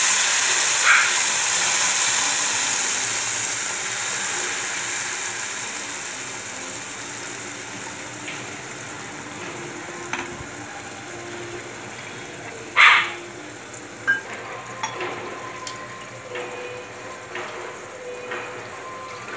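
Wet coconut-masala paste frying in hot oil with garlic: a loud sizzle that steadily dies down over the first several seconds to a quieter bubbling. A sharp knock comes about thirteen seconds in, with a lighter click a second later.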